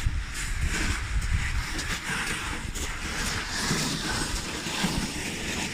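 Wind buffeting the microphone outdoors: an uneven low rumble with a steady hiss over it.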